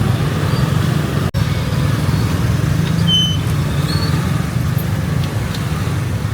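Steady low rumble of street traffic: engines of passing cars and motorbikes running continuously, with a few faint short high tones over it. The sound drops out for an instant a little over a second in.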